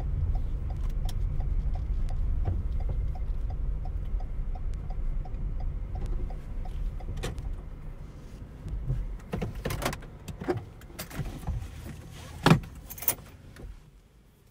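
Inside a Lexus car: a low running rumble with a small tick repeating about three times a second, like the turn-signal indicator, fading out about eight seconds in. Then scattered handling clicks and rattles inside the cabin, with a sharp knock about twelve and a half seconds in.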